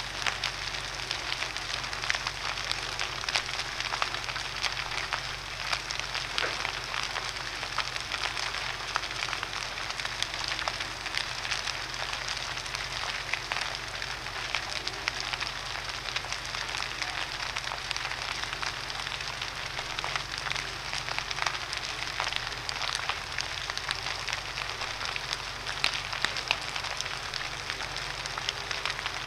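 Large building fire burning steadily, a continuous hiss of flame with many small crackles and pops scattered throughout.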